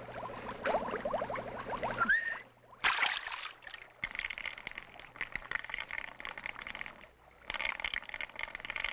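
Stream water gurgling and splashing as a small saint's statue is plunged in and lifted out, with a louder splash about three seconds in.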